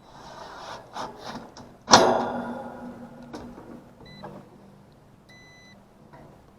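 A loud metallic clank about two seconds in, then a digital multimeter's continuity beeper: a short chirp and, near the end, a half-second beep. The beep marks a path from the compressor winding to ground, a grounded compressor.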